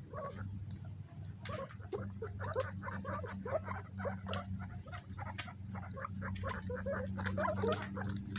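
Guinea pigs scrambling over banana: a rapid run of short squeaks mixed with clicking and pattering, thickening about a second and a half in, over a steady low hum.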